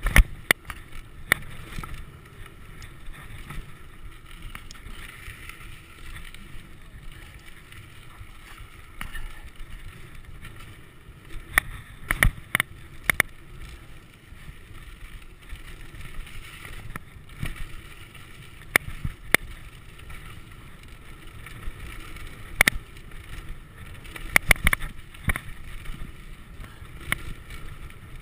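Mountain bike descending a loose, dry dirt trail at speed: a steady rush of tyre and wind noise, broken by frequent sharp clacks and rattles as the bike hits bumps.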